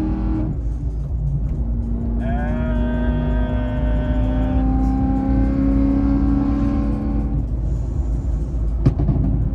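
Supercharged, straight-piped BMW M3 E90 V8 at a steady motorway cruise, heard from inside the cabin as a constant low drone. About two seconds in, a higher held tone slides up and holds for several seconds. A single sharp click comes near the end.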